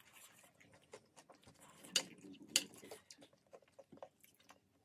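Close-miked eating sounds: soft chewing and mouth clicks, with a few sharper clicks of metal cutlery about two seconds in and again half a second later.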